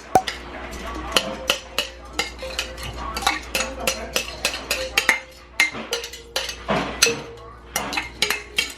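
A big spoon stirring and mashing salmon-cake mixture in a bowl, clicking and scraping against the bowl about twice a second in an uneven rhythm.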